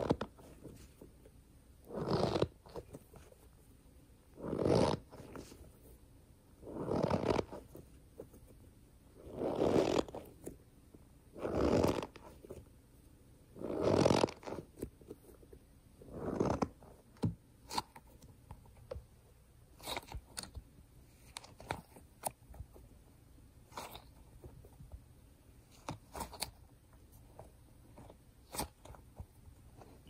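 Speckled squishy stress ball squeezed in the hand, giving a crunchy, rustling squish with each squeeze, about every two seconds. In the second half the squeezes are lighter, with short crackles and clicks.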